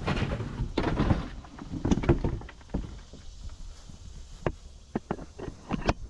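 Handling noise as the camera is set in place: rustling and bumping for about two and a half seconds, then a scatter of sharp clicks and taps.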